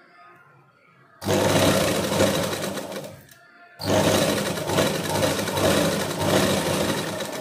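Black straight-stitch sewing machine running in two bursts, the first about two seconds long and the second about three and a half, with a short pause between, as it stitches folded fabric down onto collar canvas.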